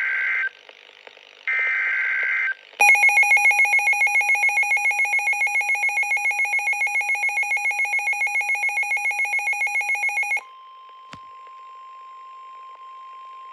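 Emergency Alert System tones from a weather radio. There are two short, buzzy bursts of the coded alert header, then a loud, rapidly pulsing electronic alarm beep for about seven seconds, then the steady single-pitched 1050 Hz NOAA Weather Radio warning alarm tone.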